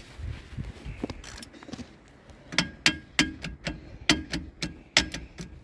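Socket wrench working a lug nut on a donut spare wheel: a few faint knocks, then from about halfway a quick run of sharp metallic clicks and clinks, about three or four a second.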